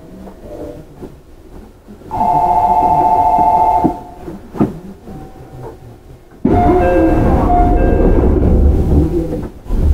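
Railway station departure signal before a 311 series local train leaves: a steady electronic ringing for about two seconds. About six and a half seconds in comes a louder, three-second stretch of several ringing tones over a low rumble.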